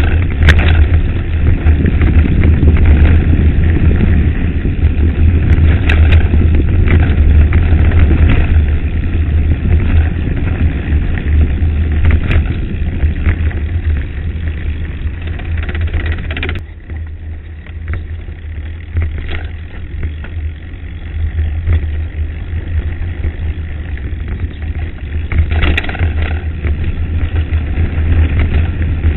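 Wind buffeting the microphone of a camera mounted on a mountain bike, with the rattle of the bike and its tyres crunching over loose gravel on a downhill dirt track, and sharp clicks and knocks as it hits stones. The rumble eases and gets quieter a little past halfway.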